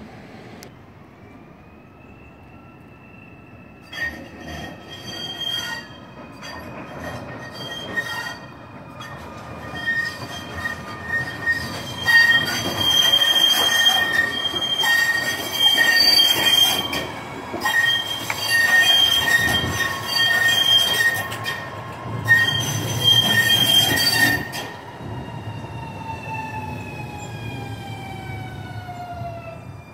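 Alstom Citadis Dualis tram-train's steel wheels squealing loudly on the rails as it comes in, the high-pitched squeal coming and going for about twenty seconds. Near the end the squeal stops and the electric drive's whine falls in pitch as the tram slows to a stop.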